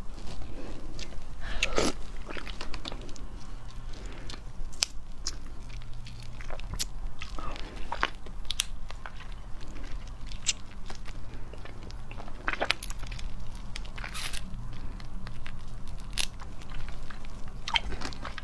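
Close-miked eating of a black tiger prawn: biting and chewing, with many scattered crisp crunches and clicks.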